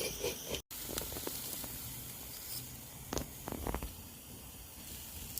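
Meat sizzling on a camp grill: a steady soft hiss, with a few light clicks about three to four seconds in.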